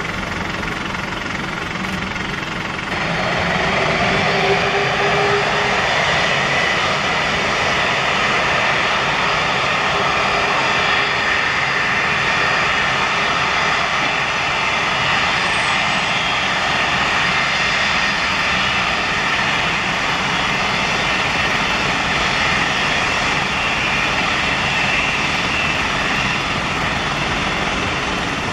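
Boeing 747-400's four turbofan engines spooling up from idle to takeoff power about three seconds in, with a rising whine, then a loud steady jet roar as the airliner starts its takeoff roll.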